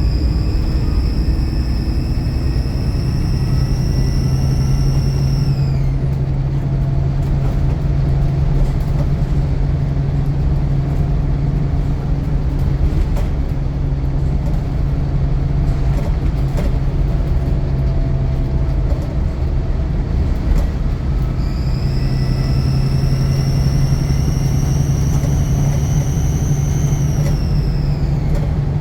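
Diesel bus engine working hard with a steady low drone and a high turbocharger whistle. The whistle holds for the first few seconds, then drops away sharply about six seconds in. It comes back about twenty-one seconds in, rising slowly in pitch, and falls off again near the end.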